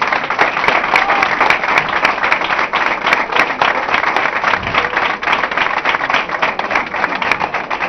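Audience applauding: loud, dense clapping from many hands that holds steady throughout.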